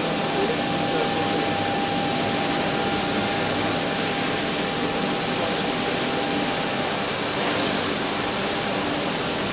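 CNC wood router running: a steady rush of noise with a thin high whine that stops about seven seconds in.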